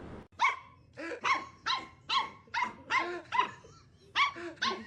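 A dog barking in a quick regular series, about two short barks a second.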